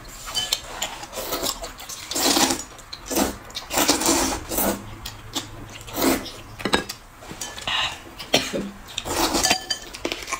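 Eating sounds: noodles slurped and food chewed, in irregular noisy bursts about a second apart, with a few light clicks.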